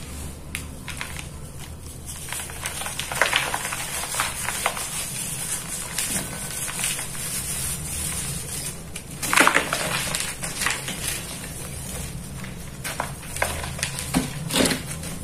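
Dry red dirt crumbled by hand: soft, irregular crunching and crackling as molded lumps break apart and the loose soil sifts through the fingers. Louder crunches come about three seconds in and again about nine seconds in.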